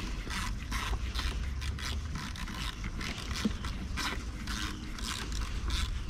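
Irregular clicks and scrapes of hand tools and parts being worked on a car's engine-bay connector.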